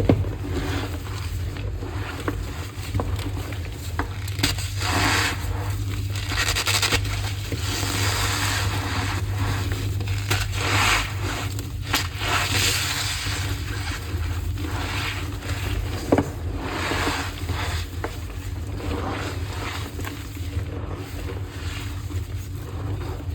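Blocks of AGI gym chalk being crushed and rubbed in the hands, crunching and squeaking in uneven bursts.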